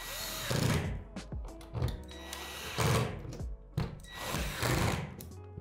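Cordless drill/driver driving screws through a pegboard strip into a shed wall panel, in several short runs, with background music.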